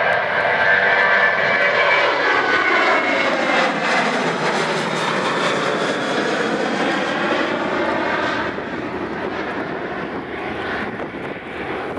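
Boeing 737-800's CFM56 jet engines climbing out after takeoff: a loud, continuous roar that sweeps in tone as the jet passes overhead, then eases as it draws away near the end.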